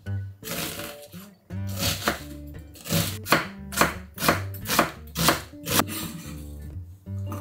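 Kitchen knife chopping an onion on an end-grain wooden cutting board: sharp, even strokes at about two a second from about three seconds in, with background music.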